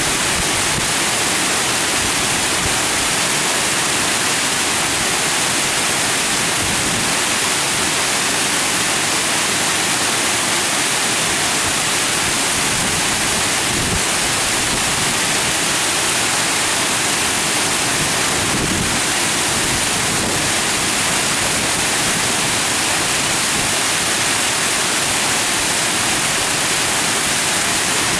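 Water pouring over a low weir and churning into white foam, a steady rushing hiss that does not let up.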